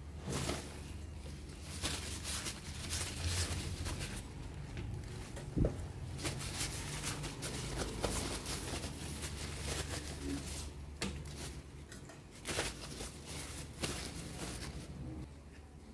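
Paper towel rustling and scrunching as potatoes are rubbed dry by hand on a metal baking sheet, with one sharp knock about five and a half seconds in. A low steady hum runs underneath.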